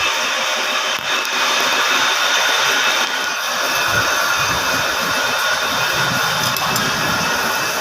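Metal lathe running while its cutting tool turns a mild steel ring: a steady, unbroken machining noise.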